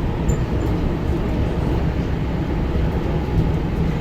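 Washington Metro subway train running, a steady rumble of wheels on rails heard from inside the car.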